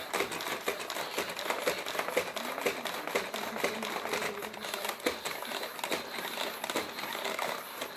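Robosapien V1 toy robot's small geared motors running as it swings its arms and turns, a dense, rapid plastic clicking rattle.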